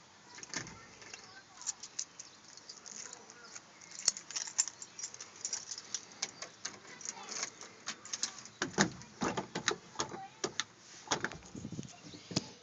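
Keys jangling on a key ring, with scattered clicks and rattles as the ignition key and the gear shifter are handled in a pickup's cab. The clicks come thicker and louder in the last few seconds.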